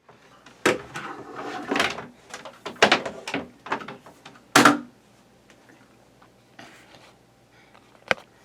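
A series of irregular knocks and clatters with rustling between them, the loudest about halfway through, like objects being handled and set down in a small room.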